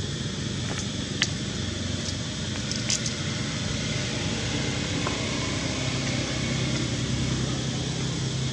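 Steady low engine hum of a vehicle running in the background, with a couple of faint clicks about one and three seconds in.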